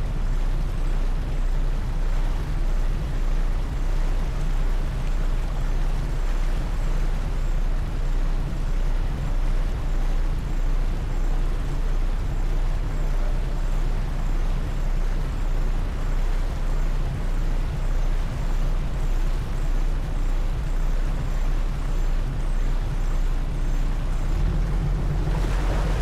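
Passenger ferry's engines running with a steady low drone under a wash of water and wind noise. Near the end the drone grows louder as the boat picks up speed.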